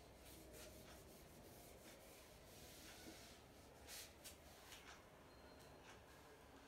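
Faint rubbing of a whiteboard eraser wiping marker ink off a whiteboard, in a few short strokes, the strongest about four seconds in.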